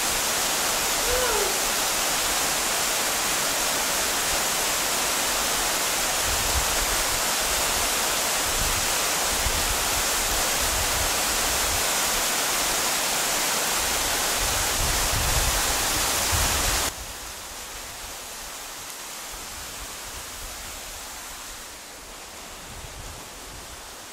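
Steady rush of a waterfall pouring into a pool. About seventeen seconds in it drops suddenly to a quieter level.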